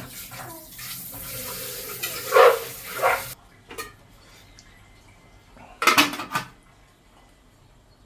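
Water running or being poured for about three seconds, with pots and utensils clinking, then a few separate clatters of kitchenware.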